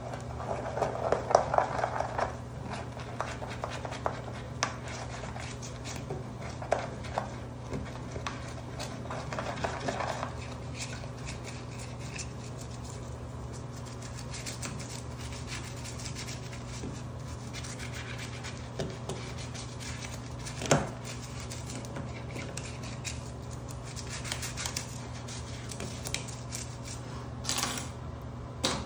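A toothbrush scrubbing the inside of a soapy metal shower drain, the bristles scratching and rubbing in uneven strokes, over a steady low hum. A single sharp click sounds about two-thirds of the way through.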